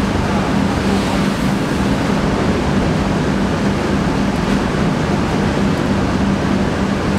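Rice mill machinery running steadily: a loud, even rushing noise with a constant low hum.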